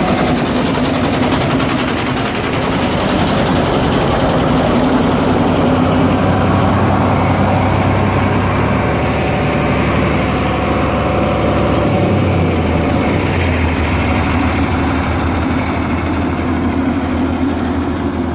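Heavy engine running steadily, driving a grain auger that is moving wheat; its low hum shifts about twelve seconds in.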